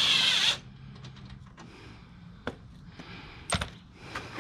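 A loud, hissing breath out at the start, ending about half a second in, then quiet handling with a click about two and a half seconds in and a sharper knock a second later.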